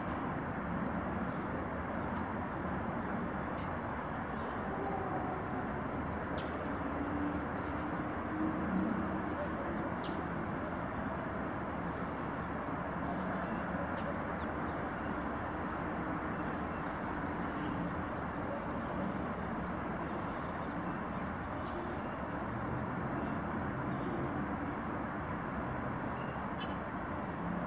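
Steady outdoor background rumble with a few faint, short, high bird chirps scattered through it.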